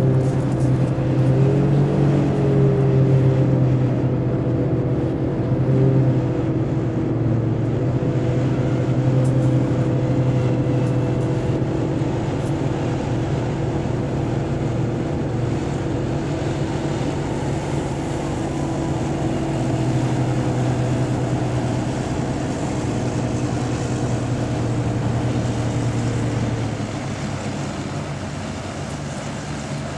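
Griffon 12000TD hovercraft running at speed, its engines and ducted propellers giving a loud, steady, pitched drone over a rushing wash as it crosses the water and comes up onto the beach. It gets somewhat quieter near the end as the craft lands.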